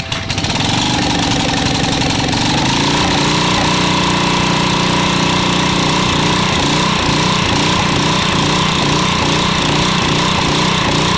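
Briggs & Stratton 4000-watt generator's engine catching within the first second and running loud and steady, settling at its speed after about two seconds. It runs now that leftover water has been cleared from between the fuel filter, vacuum-actuated fuel pump and carburettor.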